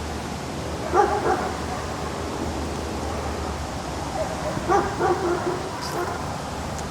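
A dog barking in short barks over steady background noise: two barks about a second in, then a run of four a few seconds later.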